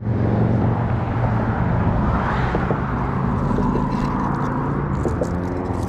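Engine running steadily with a low hum, with a few faint clicks over it.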